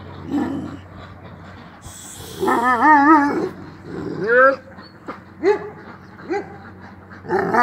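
Kangal shepherd dog whining and yipping. A long wavering whine comes about two and a half seconds in, a sharp rising yelp a second later, then a few short rising yips.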